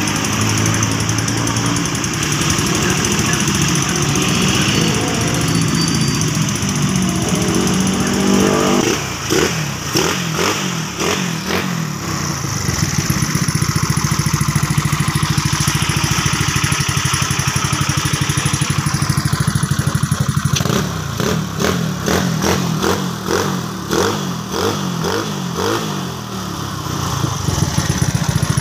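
Motorcycle engine running, revved up and let fall back to an uneven idle, twice.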